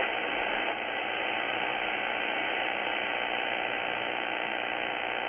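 Steady shortwave static hiss from a Tecsun S-2200x receiver in lower sideband mode, tuned across an empty stretch of the 80-meter amateur band. It sounds muffled, with no high end, because of the receiver's narrow sideband filter.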